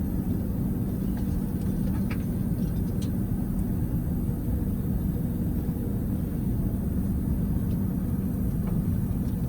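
A vehicle engine idling steadily as a low, even rumble, with a few faint clicks of hand tools or parts being handled.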